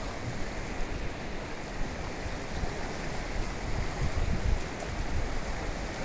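Steady rushing of a muddy river in flood, its fast current churning after heavy rain, with occasional low buffets of wind on the microphone.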